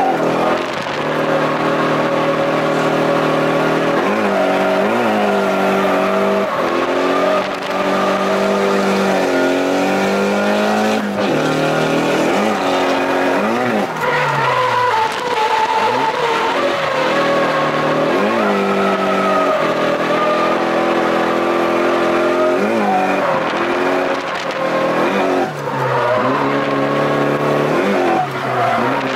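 Nissan 180SX's turbocharged four-cylinder engine heard from inside the cabin, revving up hard and dropping back every couple of seconds while the car drifts, with the rear tyres squealing as they slide.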